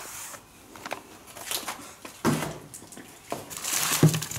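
Cardboard firework packages being handled and shuffled in a cardboard box: rustling and scraping, with a few sharp knocks.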